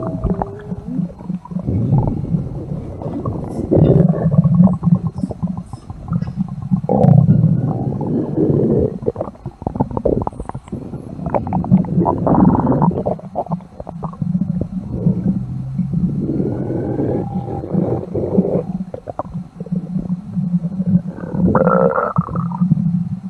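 A series of loud growling stomach sound effects: long, low gurgling rumbles that swell and fade one after another, some rising into higher warbling growls.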